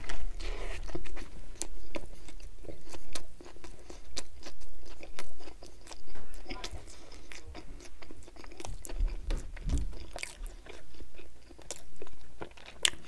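A bite of a Burger King Whopper, then chewing close to the microphone: soft wet mouth sounds with many small clicks and crunches throughout.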